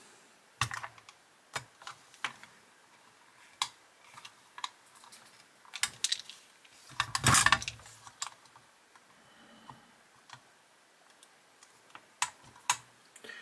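Small screwdriver and fingers working at a diecast model car: scattered sharp clicks and taps of the metal tip and small parts against the body, with a louder burst of clattering about seven seconds in.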